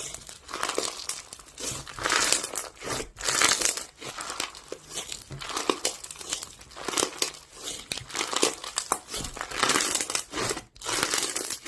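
Irregular crinkling and rustling of something being handled close to the microphone, in uneven bursts, loudest about three seconds in.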